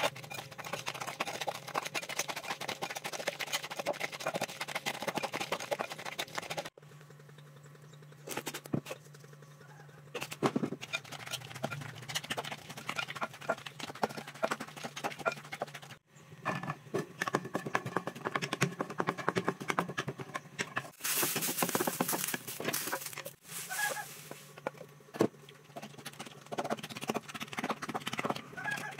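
Wooden pestle pounding and mashing a wet paste of prahok and chopped vegetables in a clay mortar: rapid, dense strikes, several a second. The strikes ease off for a few seconds about a quarter of the way in.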